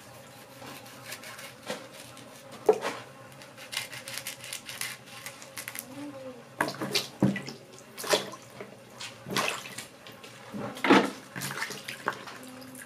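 Okra pods being cut with a knife by hand over a plastic bowl of water, the pieces dropping in with irregular small splashes; near the end hands wash the okra in the water.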